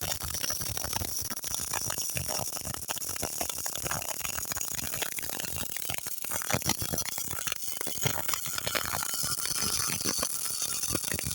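Electric welding arc crackling steadily, a dense run of irregular sharp pops and sizzle.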